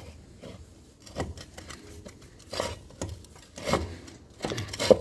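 Hand tools at work on a Minsk motorcycle's engine case: four short metal scrapes and knocks, spaced about a second apart.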